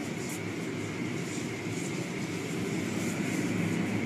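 Car wash machinery running: a steady mechanical rumble and whir.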